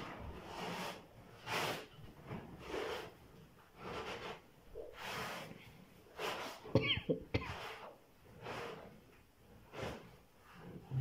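Young lion breathing hard and snorting with its nose in a cardboard box, a noisy puff about once a second. About seven seconds in comes a short crackle and scrape of the cardboard being torn, the loudest moment.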